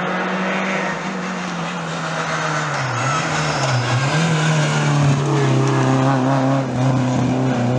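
Renault Clio rally car's engine at high revs as it comes through a bend and accelerates past. The engine note dips briefly about three to four seconds in, then climbs and holds, louder.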